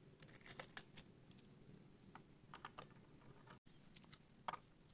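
Faint clicks of metal coins being set by hand onto a stack of 20-rupee coins, a few taps at a time in small clusters with short pauses between.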